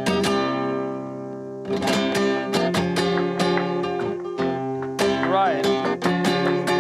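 Nylon-string Spanish guitar played in flamenco style: a chord rings out and fades, then quick, sharp strummed chords pick up a little under two seconds in. A short wavering high note sounds briefly about five seconds in.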